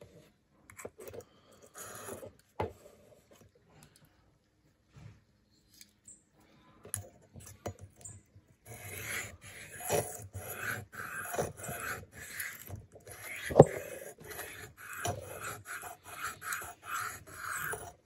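A small knife blade scraping in repeated strokes across a sharpening stone, about two a second, starting about halfway through after a few light handling clicks, with one sharp knock in the middle.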